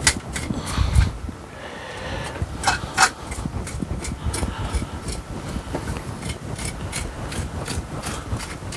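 Small hand tool scraping wet, slimy muck off the soil surface of a bonsai planting: an irregular run of sharp scratchy clicks mixed with low handling thuds.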